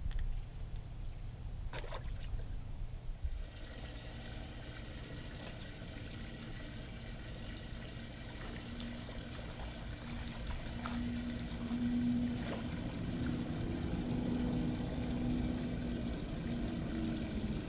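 Garmin Force electric trolling motor running with a steady hum that grows stronger about halfway through, over a low rumble of water against the boat.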